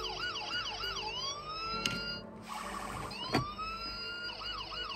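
Electronic siren sound effect from a toy garage playset, played twice. Each time a rising wail breaks into a fast warbling yelp.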